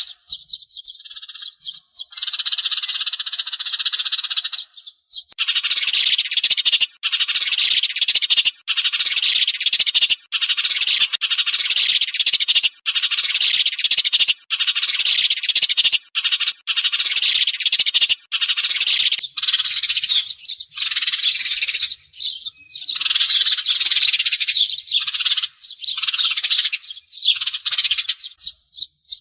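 Sparrows chirping in a dense, continuous chatter, broken by short pauses every second or two: a sparrow call recording of the kind played as a lure for glue-trapping.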